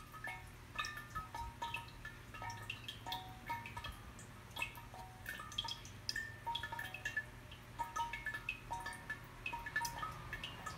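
Shigaraki-ware suikinkutsu (a round ceramic 'water koto' vessel) sounding: water drops falling inside it give short, clear ringing tones at several pitches, irregularly, a few each second.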